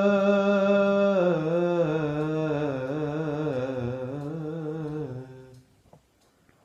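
A man's voice singing without words: a long held note, then a wavering, downward ornamented run. The run fades out about five seconds in.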